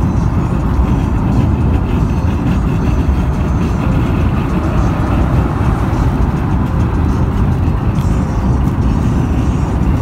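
Steady low rumble of tyre, engine and wind noise inside a car cruising at speed on a dual carriageway.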